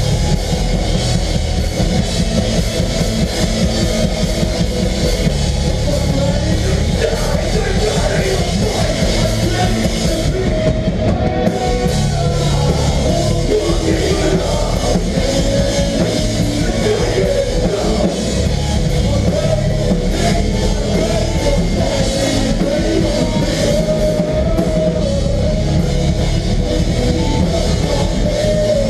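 Live melodic hardcore band playing loud, heavy rock music with a full drum kit and guitars.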